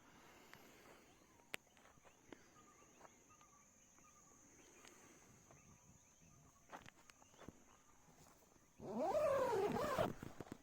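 A loud animal call with a wavering, gliding pitch, lasting a little over a second near the end. It sounds over a steady high insect drone and a few scattered faint clicks.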